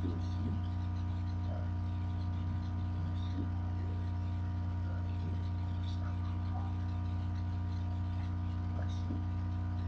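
Steady electrical mains hum with a ladder of higher steady tones above it, picked up by a computer microphone. A few faint soft ticks are scattered through it.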